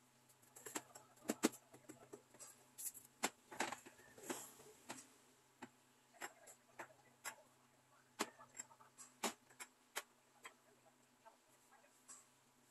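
Tin cans being picked up and set down on a store shelf: light, irregular clinks and knocks, a few louder in the first half.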